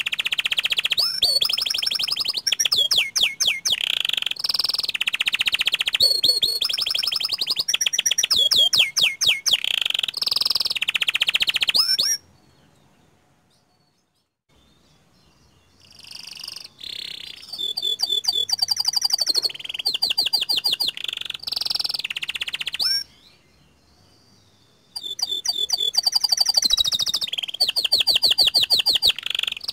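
Domestic canary singing long, rapid rolling trills and whistled phrases. The song stops twice for a few seconds, about twelve seconds in and again near twenty-three seconds, before starting again.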